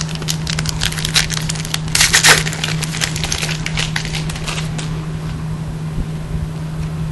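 A foil trading-card pack being handled and torn open: a run of crinkling and crackling, loudest in a dense burst about two seconds in, dying away by about five seconds.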